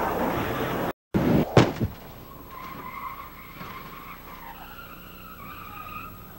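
A car on its side grinding and scraping along pavement, then, after a brief dropout, a van crashing over in a rollover with two sharp heavy impacts. A fainter wavering squeal follows for several seconds.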